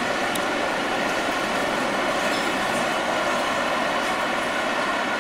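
Steady city street noise: a continuous, unbroken wash of sound with no distinct events.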